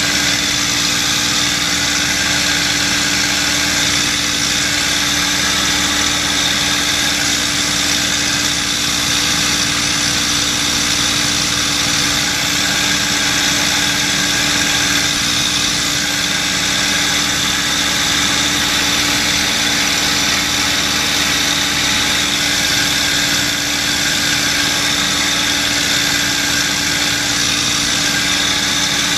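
P-51D Mustang's Packard Merlin V-12 engine and propeller running steadily in cruise flight, heard inside the cockpit under the canopy with slipstream noise.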